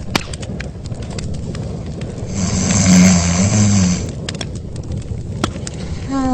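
A snore: one loud, drawn-out snore about two and a half seconds in, lasting about a second and a half, with a low wavering pitch and a breathy rasp, over steady hiss and crackle. Near the end a sound with a falling pitch begins.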